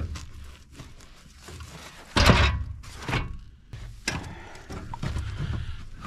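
A few knocks and clunks as a man handles the controls and shifts on the seat of a compact tractor, the loudest a little over two seconds in, over a low uneven rumble.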